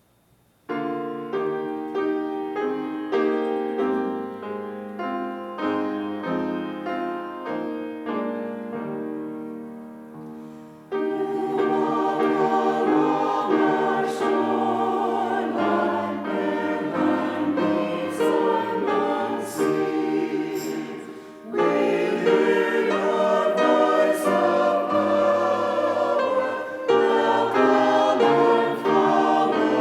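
A hymn: a piano plays an introduction of struck, decaying notes, and about eleven seconds in many voices join, singing with the piano. The singing pauses briefly after about twenty seconds and goes on.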